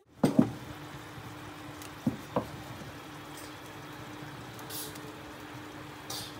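Wooden spatula stirring a thick paste in a steel pot: a few knocks against the pot in the first couple of seconds, then soft squishing, with two short hisses later on. A steady low hum runs underneath.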